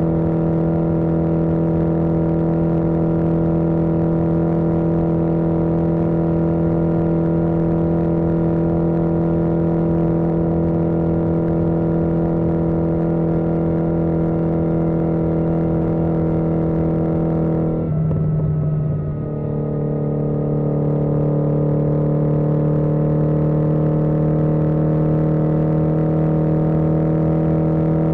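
1981 Yamaha XJ650 Maxim's air-cooled inline-four engine running steadily at road speed, with its engine note dipping briefly about two-thirds of the way in before settling back.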